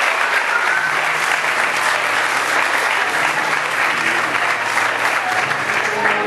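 A crowd of people clapping steadily, with a few voices mixed in.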